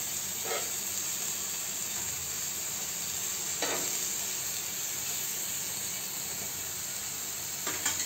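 Chicken tikka pieces sizzling steadily in a few drops of oil on a hot flat tawa griddle, with two short spatula strokes against the pan as the pieces are turned over, about half a second in and again near four seconds.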